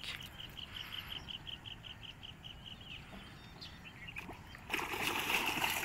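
A fast, even train of high chirps, about seven a second, runs for the first three seconds. About four and a half seconds in, louder water splashing starts: a hooked fish thrashing at the surface.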